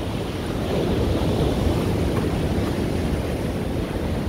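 Sea surf breaking over shoreline rocks and washing up the sand, a steady rushing, with wind rumbling on the microphone.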